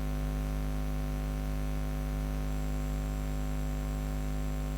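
Steady electrical hum with a stack of buzzy overtones over a faint hiss, unchanging throughout, with no speech.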